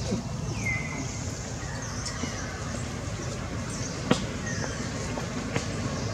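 Outdoor ambience: a low steady rumble with a few short, high chirps that fall in pitch, and one sharp click about four seconds in.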